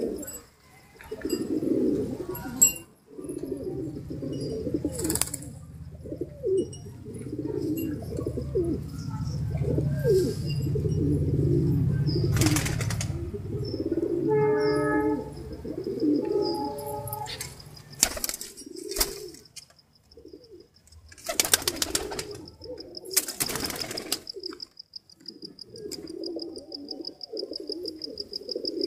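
Domestic pigeons cooing, low wavering coos one after another, broken by a few brief bursts of noise.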